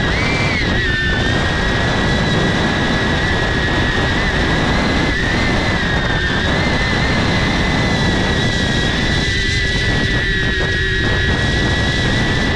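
DJI Avata FPV drone's motors and propellers in flight, heard close up through a GoPro mounted on the drone: a steady high whine over a rush of prop wash. The pitch wavers up and down at the start, then holds nearly level.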